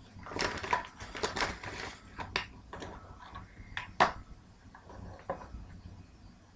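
A package being opened by hand: rustling of packaging for about two seconds, then a few sharp clicks and taps, the loudest about four seconds in.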